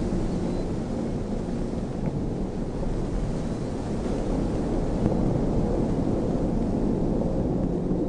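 Strong wind rushing and buffeting the microphone: a dense, steady low rumble that swells a little about halfway through.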